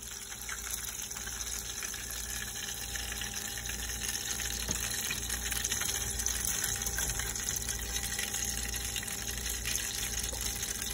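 Chicken drumsticks deep-frying in hot oil in a deep fryer basket: a steady, dense crackling sizzle that grows a little louder over the first few seconds.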